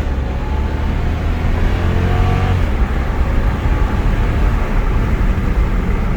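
Jeep Grand Cherokee's Hemi V8 with its rear exhaust resonators cut out, accelerating from a turn and then cruising, a deep steady rumble with road noise. The pitch rises over the first two seconds or so as it pulls away.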